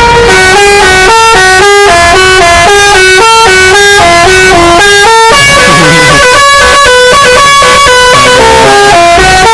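Indonesian bus 'telolet' (basuri) musical air horn playing a quick tune, very loud. It steps from note to note about three times a second, with several tones sounding together.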